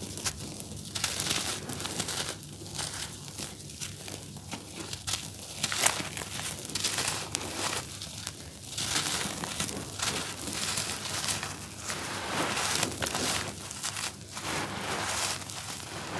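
Dry, grainy charcoal cakes crumbled and crushed between bare hands: irregular gritty crunching and the rustle of grains and powder falling onto loose powder, with one sharper snap about six seconds in.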